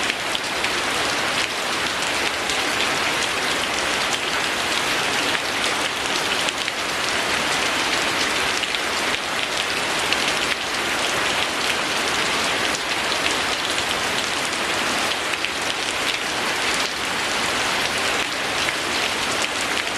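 Steady rain falling on a surface: a dense, even patter of drops that does not let up.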